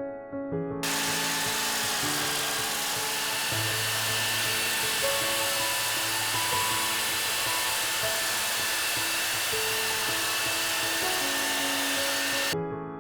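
A power tool running steadily, with a constant high whine over a loud hiss. It starts abruptly about a second in and cuts off shortly before the end. Soft piano music plays underneath.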